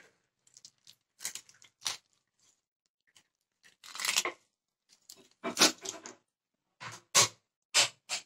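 Small baspata fish being scaled and cut against an upright boti blade: a series of short, irregular scraping strokes as each fish is drawn across the edge, with the loudest about five and a half and seven seconds in.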